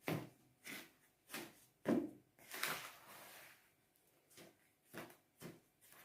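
Dry baking ingredients (flour, sugar and baking powder) being stirred in a bowl: a utensil scraping and swishing against the bowl in short strokes, about two a second, with a brief pause midway.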